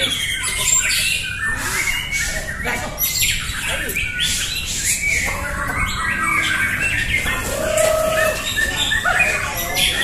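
Many caged white-rumped shamas (murai batu) singing against each other at once: a dense tangle of overlapping whistled phrases, quick chips and harsh squawking calls, with a lower held note about eight seconds in.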